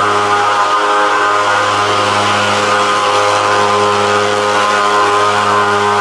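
Motorized insecticide fogging machine running with a loud, steady, even-pitched drone while fumigating a house.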